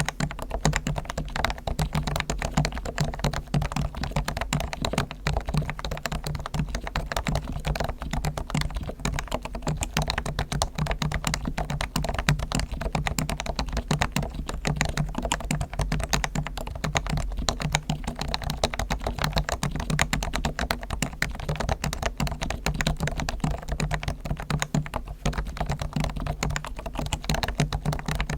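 Continuous fast typing on a Realforce R1 Topre electrostatic-capacitive keyboard, a dense stream of many keystrokes a second without a pause. Its springs and sliders are fully lubed with Krytox, its stabilisers lubed and tuned, and its case dampened with foam.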